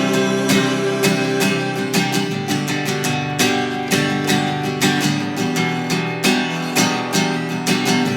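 Instrumental break in a worship song: acoustic guitar strumming chords in a steady rhythm, with no singing.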